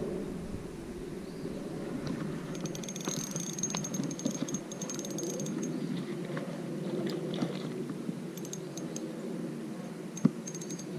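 Creek water running steadily, with stretches of rapid, high-pitched ticking or buzzing and one sharp knock near the end.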